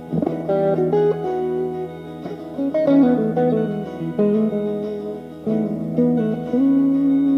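Fernandes FST-50 Stratocaster-style electric guitar played with a clean tone. A chord is struck at the start, followed by picked notes and chord changes, ending on a held note.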